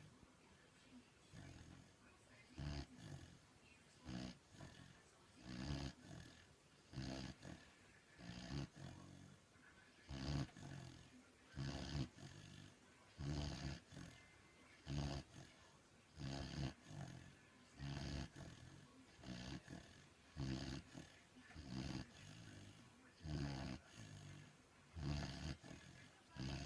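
A puppy snoring in its sleep: short, low, rasping snores repeating evenly about every one and a half seconds, starting about two seconds in.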